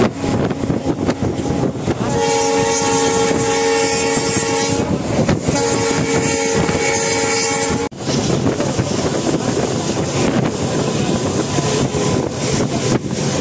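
Train horn sounding two long, steady blasts of about two and a half seconds each, with a short gap between, over the rumble of a moving train. The second blast cuts off abruptly, leaving only running-train rumble and wind.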